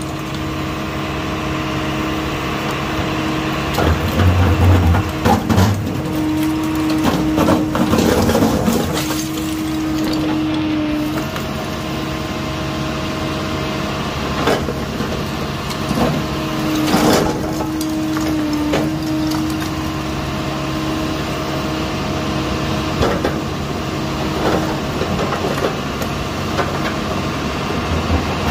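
Small hydraulic excavator running steadily, with a hydraulic whine that comes and goes as the bucket works at a brick wall. Bricks knock and clatter down several times, loudest about four to six seconds in and again around seventeen seconds.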